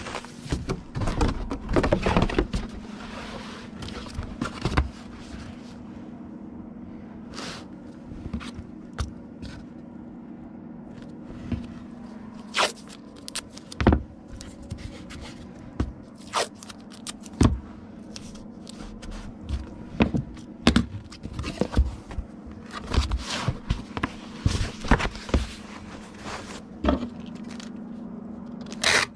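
Comic books being packed for shipping: plastic and packing material scraping and crackling as they are handled, with scattered sharp taps and knocks, over a steady hum.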